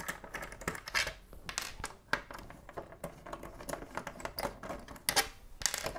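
Small screwdriver backing screws out of the plastic case of an Atari SF314 floppy drive: a run of light clicks and scraping, with a sharper click about five seconds in.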